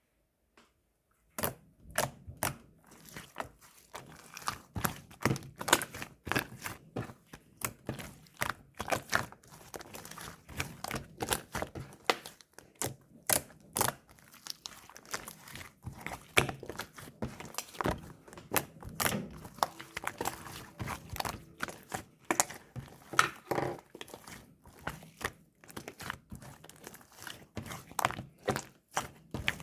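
Milk slime being squished, pressed and poked by hand, making a quick, irregular run of sharp clicks and pops with squishy sounds between them, starting about a second in.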